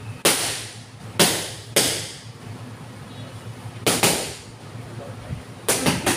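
Boxing gloves striking focus mitts: about eight sharp smacks in uneven groups, a few single hits then a quick flurry near the end, each echoing briefly in the gym.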